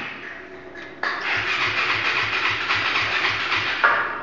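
DC stick-welding arc burning on a steel post with a steady crackle. It starts suddenly about a second in and breaks off shortly before the end.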